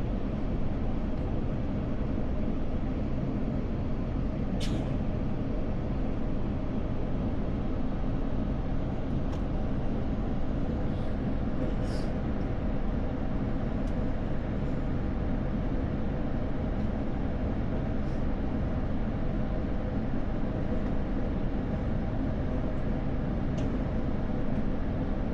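Steady low rumble of a jet airliner heard from inside the cabin, with a few faint clicks.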